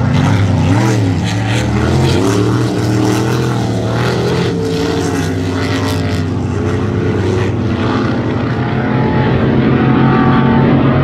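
Engines of several racing powerboats running flat out as the boats pass, their pitches rising and falling.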